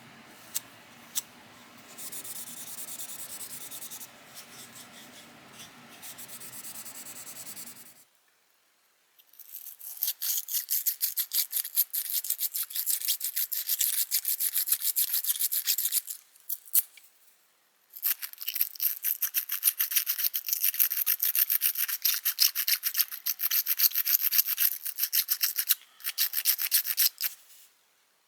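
Rapid back-and-forth hand rubbing strokes, like scrubbing or sanding a small screwdriver part, starting about eight seconds in and running in two long bouts with a short pause between them. Before that, only faint handling sounds and a few light clicks.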